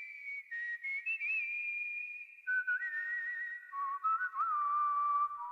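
A thin whistling tone opening the song, holding high notes and stepping down in pitch in several stages with small wavers, over faint crackling.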